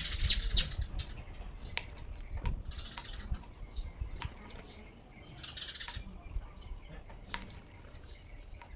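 A small bird fluttering its wings in short bursts against a motorcycle's side mirror, with a few sharp taps on the mirror in between, as the male bird fights its own reflection.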